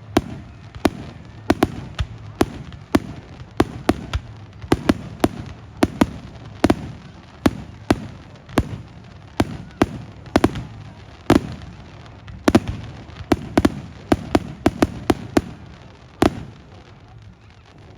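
Fireworks display: a rapid barrage of aerial shell bursts, sharp bangs coming two or three a second, often in quick pairs, each with a low rumbling echo. The barrage thins out and stops near the end.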